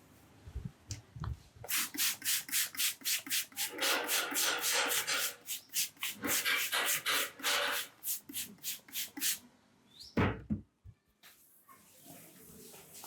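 Hands rubbing and striking rhythmically on a person's head and hair during a head massage, about four quick strokes a second for some seven seconds. A single low thump follows near the end.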